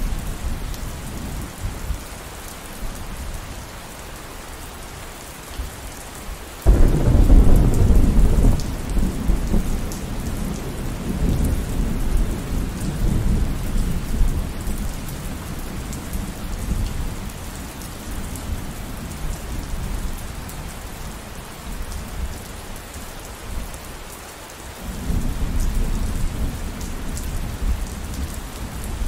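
Steady rainfall with thunder. A sudden loud thunderclap about seven seconds in rumbles on for several seconds as it fades, and a second, softer rumble of thunder comes near the end.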